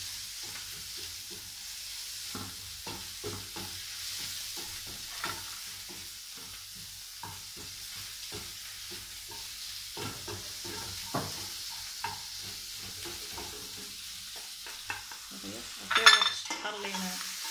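Black mushrooms and onion sizzling and browning in a stone-coated frying pan, stirred with a wooden spatula that scrapes and taps against the pan. About a second before the end comes a louder knock and scrape as the pan is lifted and the mushrooms are scraped out onto a plate.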